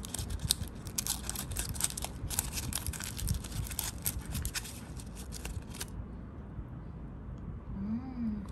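Gold foil wrapper of a Ferrero Rocher chocolate being peeled open and crinkled by hand: a rapid, irregular crackling for about six seconds, which then stops. Near the end there is a short hummed "mm".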